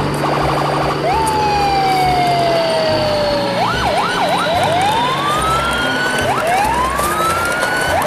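Cartoon-style whistle sound effects. A rapid chattering run ends about half a second in. Then comes one long falling whistle, three quick up-and-down swoops, and two slow rising glides.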